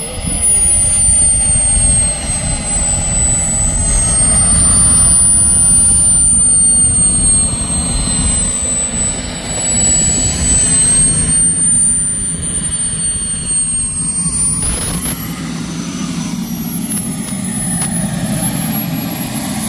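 KingTech K-210 G4+ model jet turbine running as the RC jet taxis and stands. Its high whine falls in pitch over the first two seconds, then drifts gently up and down over a steady rushing roar.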